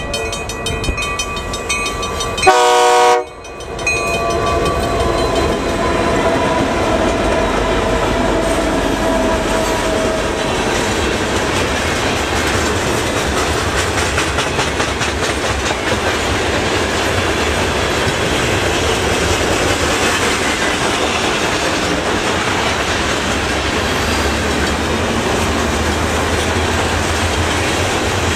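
Freight train led by two CN SD60F diesel locomotives: one short, loud horn blast about three seconds in as it nears the crossing, then the locomotives go past. After that the covered hopper cars roll by with a steady rumble and clacking of wheels on the rails.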